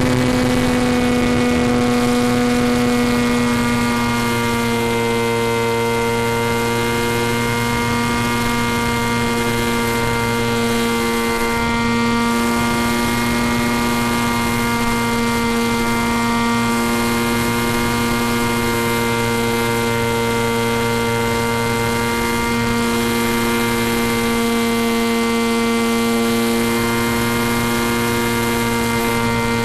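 Steady droning hum with several overtones and a hiss above it, from an FPV model plane's electric motor and propeller heard through the onboard video link's audio.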